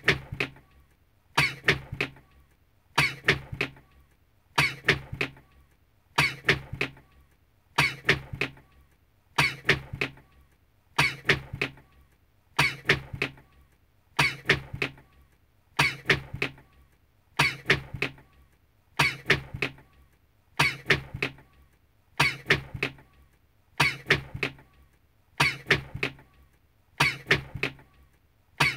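A person's sneeze looped over and over, the same sneeze repeating evenly about every one and a half seconds.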